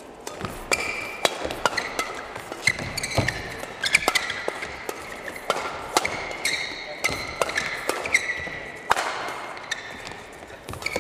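Badminton doubles rally: sharp cracks of rackets striking the shuttlecock, one every second or so, mixed with short squeaks of court shoes on the mat.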